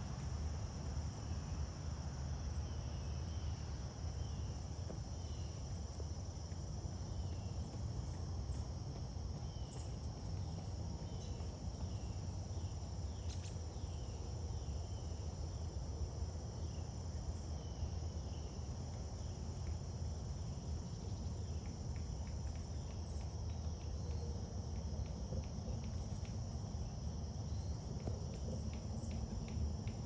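Steady outdoor insect chorus, a continuous high buzz, over a low steady rumble, with short high chirps scattered through the first half and faint ticks near the end.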